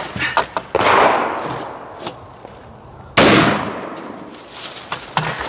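Two rifle shots from a Rock River CAR A2 AR-15 carbine, about two and a half seconds apart, each followed by a long echo that dies away over a second or more. A few light clicks sound between them.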